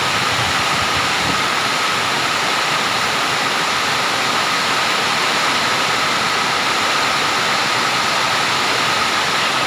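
Rainstorm: a loud, steady rush of heavy rain and wind, unbroken throughout.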